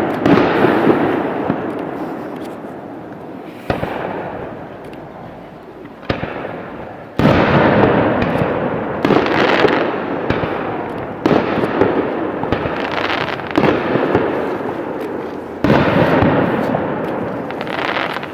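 Fireworks going off in a run of bursts, each starting with a sudden bang and trailing into a dense crackle that fades over a few seconds; the sharpest bangs come about seven and sixteen seconds in.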